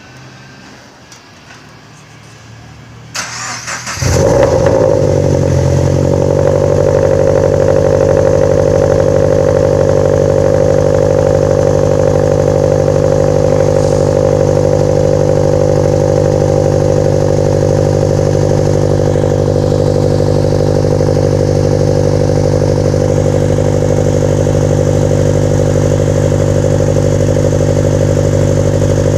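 Scion FR-S 2.0-litre flat-four engine with unequal-length headers starting: a brief crank about three seconds in, catching a second later, then running at a steady idle through the new exhaust.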